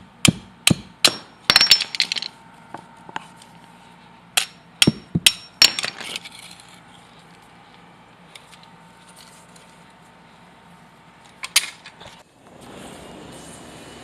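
Hammer blows in short groups, sharp strikes with a slight metallic ring, the last one alone near the end; about two seconds before the end the background changes abruptly to a steady noise.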